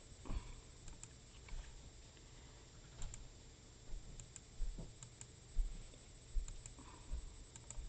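Computer mouse clicking: about a dozen faint, sharp clicks at uneven intervals.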